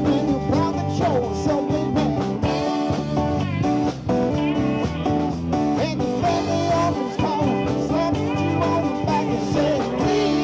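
Live band playing: electric and acoustic guitars and a drum kit, with a lead vocal sung into the microphones.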